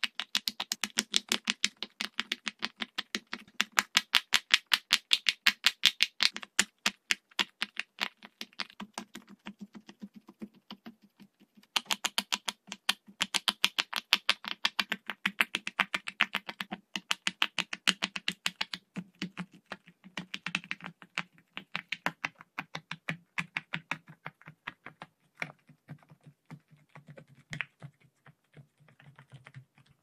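Silicone pop-it fidget toy bubbles being pushed in by fingertips: quick runs of short soft pops, several a second, with a brief pause about a third of the way through.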